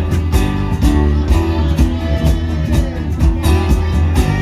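Live rock band playing the instrumental lead-in to a song: guitar, heavy bass and drums keeping a steady beat.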